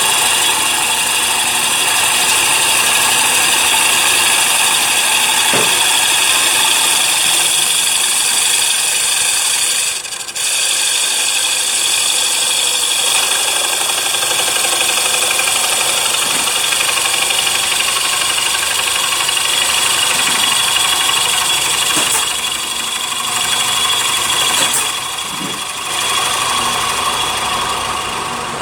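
CNC wood lathe turning a wooden plate: a loud, steady run of motor tones with the hiss of the cutter on the wood. It dips briefly about ten seconds in and wavers near the end.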